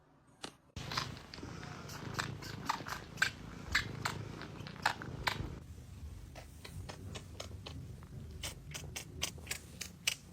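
A cat purring in a steady low rumble that starts suddenly about a second in, with irregular crisp clicks of chewing over it.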